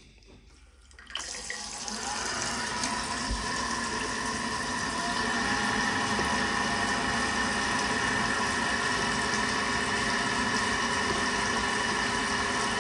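Worcester combi boiler running on a hot-water demand: water rushing through it with a steady hum. The sound starts suddenly about a second in, builds over the next few seconds, then holds steady.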